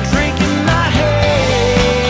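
Rock-style song with a steady beat and a lead line that slides in pitch, then holds a long note from about a second in, between sung lines.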